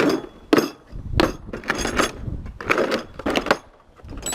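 Metal hand tools clinking and clattering as they are handled: a run of sharp, ringing metallic clinks, roughly two a second.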